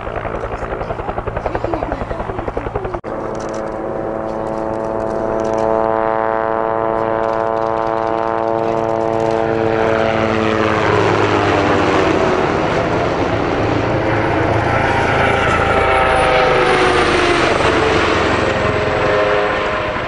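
Low-flying military helicopters: a fast rotor beat, then the rotor and turbine tones of a passing helicopter slowly dropping in pitch, and a second set of tones rising as another helicopter comes closer near the end.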